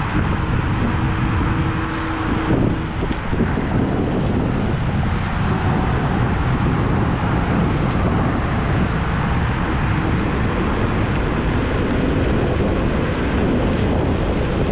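Steady wind rush and road noise from a Kaabo Mantis Pro SE electric scooter riding at speed along a paved path, heard through a handlebar-mounted camera microphone.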